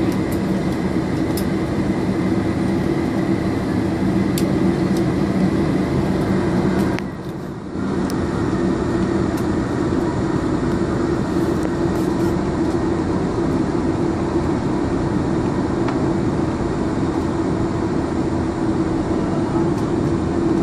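Cabin noise of a Boeing 747-400 taxiing, heard from a window seat over the wing: the steady drone of its jet engines with a low hum under it. The level dips briefly about seven seconds in.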